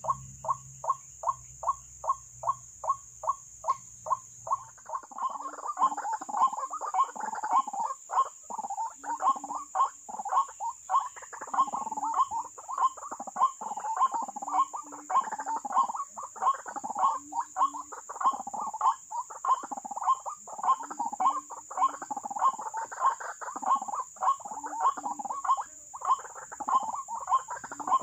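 White-breasted waterhens calling: a run of evenly repeated notes, about two to three a second, joined about five seconds in by a denser, overlapping chorus of croaking calls that keeps going. A steady high-pitched drone runs underneath.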